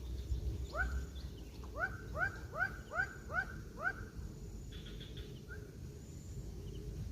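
An animal calling in a quick series of short upswept notes, about three a second, which breaks off midway and then starts again more softly. A steady low rumble runs underneath.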